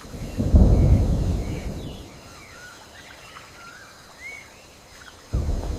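A deep low rumble swells up about half a second in and dies away over a couple of seconds, then rises again near the end. Faint short chirping calls from night forest animals are scattered over it.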